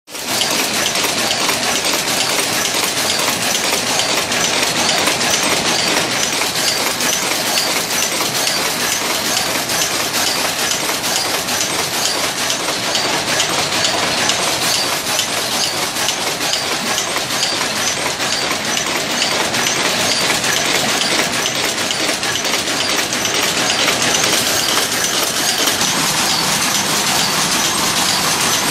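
Power loom weaving striped chenille fabric, a fast, steady mechanical clatter.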